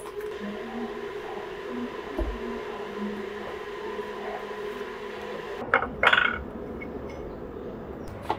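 Barista work at an espresso bar: a steady background hum with light knocks, then a sharp, loud clatter of metal and glass about six seconds in, and a single click near the end.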